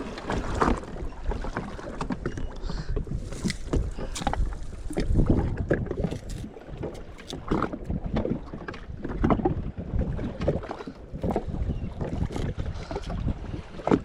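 Choppy water slapping and knocking against the hull of a jet ski sitting at anchor, with wind buffeting the microphone. Irregular splashes and knocks come without any steady rhythm, and no engine is running.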